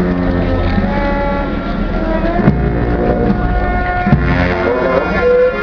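Slow procession music with long held notes that shift pitch every second or so over a low steady hum, with a few heavy thumps and crowd voices underneath.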